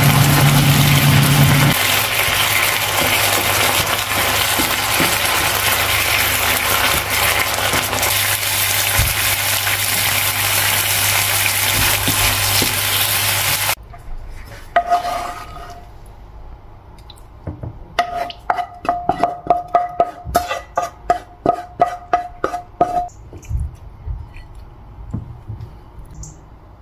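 Chicken liver simmering in sauce in a non-stick frying pan: a steady sizzling hiss that cuts off abruptly about halfway through. After it, quieter rapid clinks and scrapes of a utensil against the pan and a ceramic plate as the liver is served.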